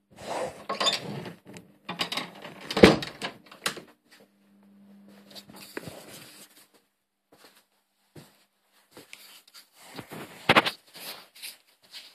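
Irregular knocking and clattering of household objects being handled, loudest about three seconds in and again near the end. A faint low hum comes and goes.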